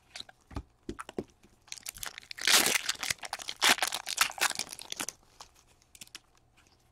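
Foil wrapper of a hockey card pack crinkling and tearing as it is ripped open, loudest about two and a half seconds in, with light clicks and rustles of stiff trading cards being shuffled in the hands.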